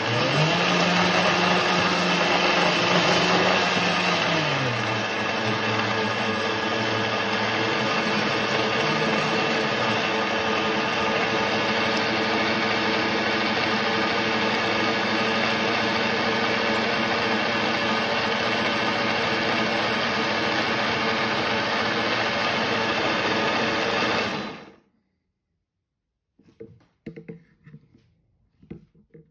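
Hom Geek 2000 W countertop blender motor running at high speed, blending a liquid smoothie. Its pitch rises just after the start, drops back a few seconds later and then holds steady. It stops suddenly near the end, leaving only a few faint knocks.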